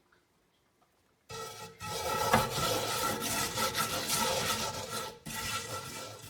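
Coarse sea salt being scrubbed dry around the inside of a cast iron skillet, a harsh rasping that starts about a second in, breaks off briefly near the end, then resumes.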